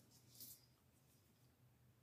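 Near silence: faint room tone with a low hum, and one faint brief scratch about half a second in.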